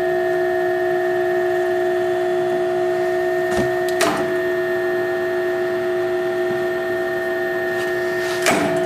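Drill press motor and three-spindle tapping head running with a steady hum as three taps cut threads. About four seconds in there is a click as the self-reversing motor switches direction at the set depth to back the taps out. Another click comes near the end.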